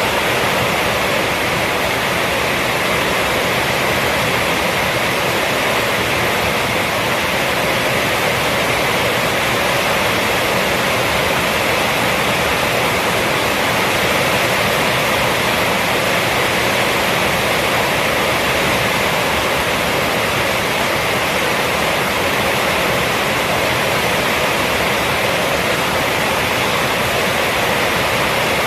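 Heavy rain from a rainstorm falling on a roof, a steady, even rush with no separate drops or thunder standing out.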